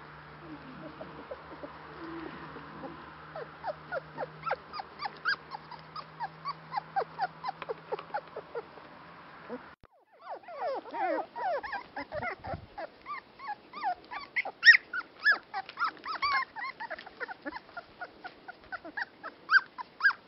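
Dandie Dinmont Terrier puppies yipping and whimpering in a rapid stream of short, high squeaks as they play-fight. The sound breaks off briefly about halfway through, then the squeaks come thicker and louder.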